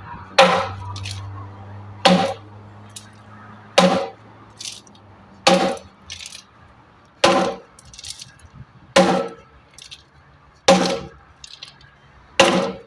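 Concrete pump running: eight heavy clanks about 1.7 seconds apart, each followed by a short hiss.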